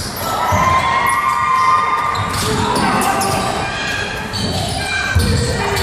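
Basketball game in a large gymnasium: a ball bouncing on the hardwood court, sneakers squeaking, and background voices, all echoing in the hall.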